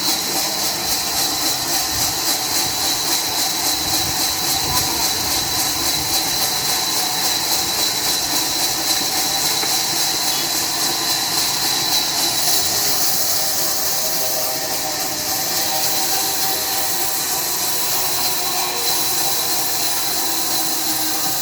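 Sawmill machinery running steadily, with a loud high hiss over a mix of steady mechanical tones.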